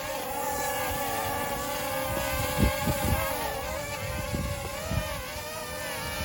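Tello mini quadcopter's small propellers, here cheap knock-off replacements, buzzing in a steady high whine as it flies, the pitch wavering slightly as the motors correct. Wind buffets the microphone with low thumps.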